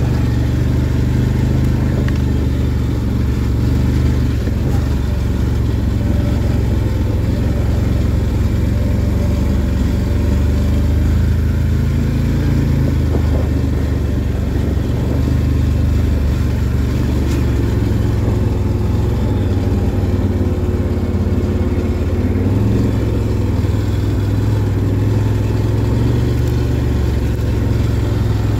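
Can-Am 1000 ATV's V-twin engine running at steady, moderate throttle while riding, its pitch wavering slightly and rising a little about two-thirds of the way through.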